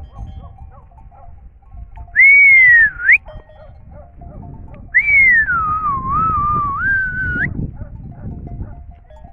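Two loud human whistles. The first, about two seconds in, is short and slides down before flicking up. The second, about five seconds in, is longer: it falls, wavers and rises again at the end.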